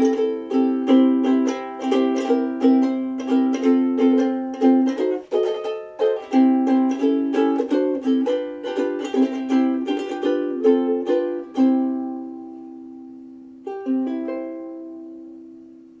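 Sumi UK-3KT soprano ukulele with a curly koa body being played: a rhythmic run of plucked notes and chords with a short break about a third of the way through. Toward the end the playing stops on a chord, and one last chord rings out and fades away.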